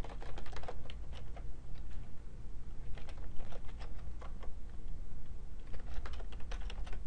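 Computer keyboard typing in three short runs of keystrokes with pauses between them, over a faint low hum.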